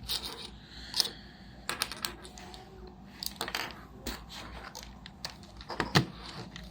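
Irregular clicks and taps of small plastic parts being handled, as the PSP remote control is fitted to the PSP, with a louder knock near the end.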